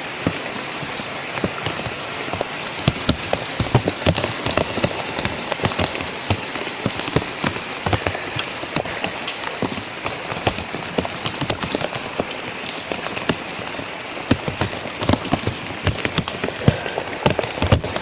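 Steady tropical-storm rain, with many sharp drop hits close by.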